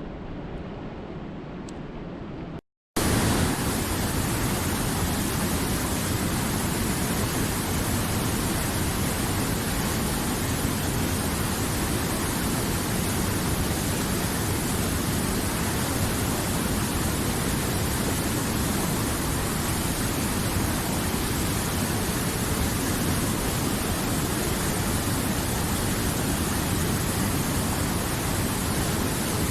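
Steady rushing of water. A quieter stretch ends in a brief cut to silence about three seconds in, followed by a louder, even rush.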